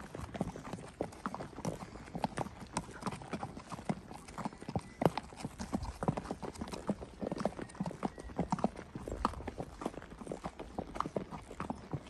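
Criollo horses' hooves clip-clopping as they are ridden at a walk, an uneven run of hoofbeats from more than one horse.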